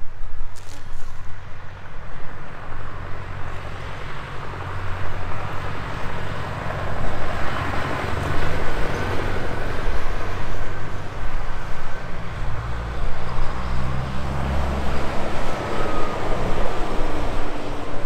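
Tractor with a front snow plough blade clearing a snowy road: its engine runs steadily and the road noise swells to a peak about eight seconds in. Wind buffets the microphone throughout.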